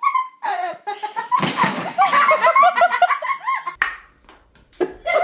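A person laughing hard in quick, choppy bursts, with a brief noisy clatter about a second and a half in.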